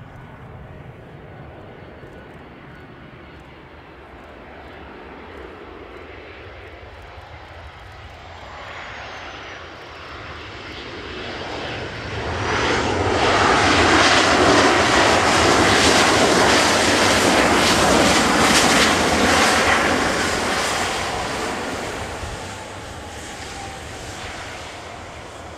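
Boeing 737-800's CFM56-7B turbofan engines landing. The jet noise grows as the airliner comes in, with a high whine falling in pitch shortly before touchdown. It then becomes a loud, steady roar for several seconds as the jet rolls out past, and fades near the end.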